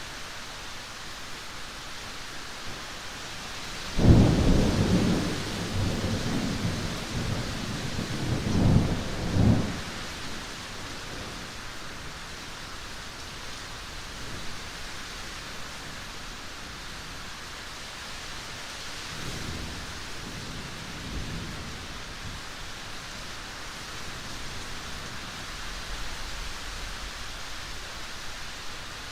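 Steady rain, with a loud thunderclap about four seconds in that rolls on for several seconds, peaking twice more before dying away. A fainter roll of thunder follows about twenty seconds in.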